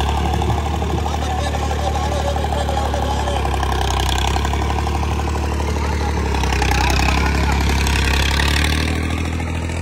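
Old Fiat tractor's diesel engine running steadily at low revs, a little louder about two-thirds of the way through, with a crowd's voices talking underneath.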